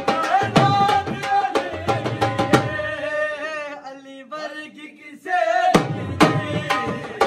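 Dhol, a double-headed barrel drum, beaten with sticks in a fast, driving folk rhythm: deep bass thumps and sharp cracks on the treble head. About three seconds in the drumming falls away and a voice sings for a couple of seconds, then the drum comes back in hard near the end.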